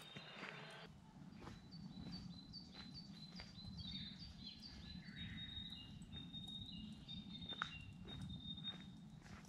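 Faint woodland birdsong: a small bird repeats runs of short, high chirps, each dipping slightly in pitch, over a steady low rumble. A few footsteps land on the ground now and then.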